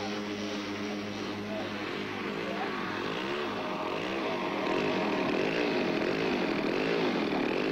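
Four Super Tigre 3000 engines of a large radio-controlled Super Constellation scale model running together, their slightly different speeds making a regular wavering beat. The sound grows a little louder about five seconds in.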